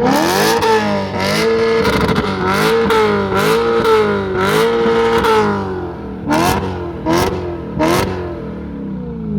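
BMW M3 engine being revved hard, its pitch rising and falling again and again, then three quick sharp blips of the throttle about a second apart before it drops back toward idle.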